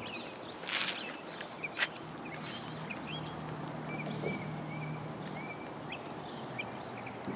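Outdoor ambience of small birds chirping in short, scattered calls, with a faint steady low hum from about three to six seconds in and a couple of brief clicks near the start.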